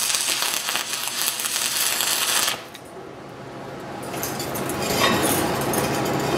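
Stick-welding arc from a 6010 rod on steel pipe, crackling steadily during a downhill hot pass. It cuts off suddenly about two and a half seconds in as the welder breaks the arc and stops. Then come quieter handling sounds with a few light clinks.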